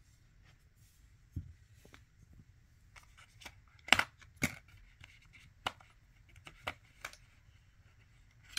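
Plastic doorbell mounting brackets being handled, giving a few sharp clicks and knocks, with the loudest pair about four seconds in.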